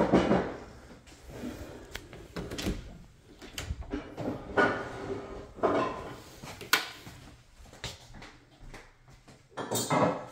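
Irregular knocks and clicks of household handling, including an interior door, with a louder knock at the start and another near the end.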